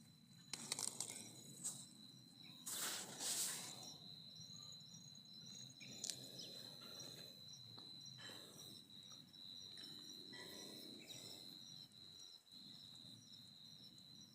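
Faint insect song: a steady high trill with a second, higher chirp repeating about twice a second. It is joined a couple of seconds in, after a few brief rustling noises near the start, which are the loudest sounds.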